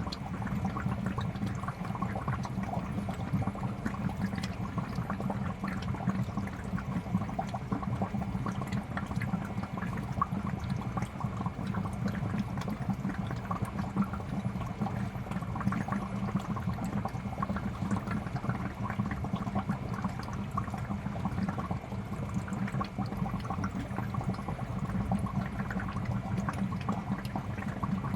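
Aquarium air bubbler running: a continuous stream of bubbles rising and popping at the water's surface, with a steady low hum beneath.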